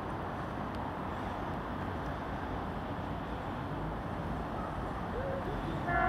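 Steady low rumble of trains approaching in the distance; just before the end a train horn starts to sound.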